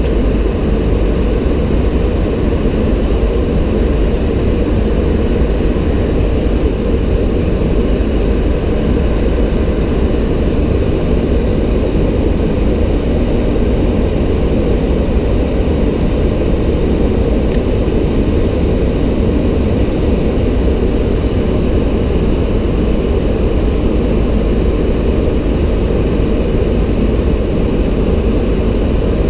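Steady cockpit noise of a Boeing 737-800 in descent on approach: an even, unbroken rush of airflow and engine sound, deepest and strongest in the low end.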